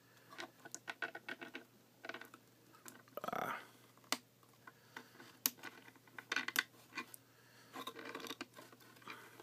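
Revoltech Ryu action figure being posed by hand: its ratcheting revolver joints click in quick, irregular runs, with plastic handling and rubbing, and a short rustle about three seconds in.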